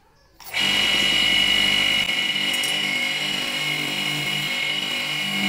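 Bench grinder fitted with a red non-woven abrasive wheel, running with a steel cleaver blade pressed against it for polishing: a steady whine that cuts in abruptly about half a second in.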